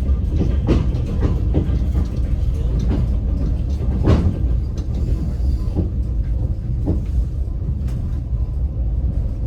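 Passenger train carriage rolling along: a steady low rumble of the running gear with irregular knocks of the wheels over the rails, the loudest about four seconds in.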